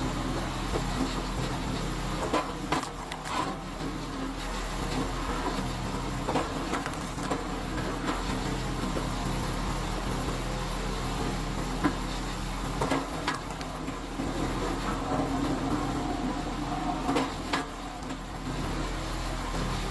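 A DR Rapid Fire kinetic log splitter's small engine running steadily. Several sharp knocks and cracks come at irregular moments as logs are rammed onto the splitting wedge and break apart.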